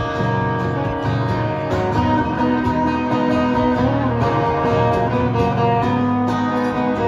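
Acoustic guitar playing an instrumental passage of a song, steady strummed and picked chords with no singing.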